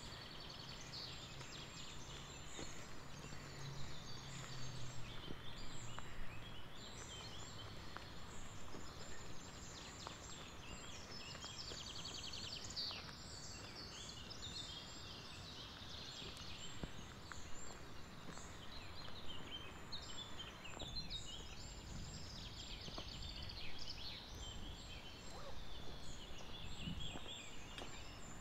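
Several songbirds singing at once, with quick high chirps and trills overlapping throughout over a steady outdoor hiss.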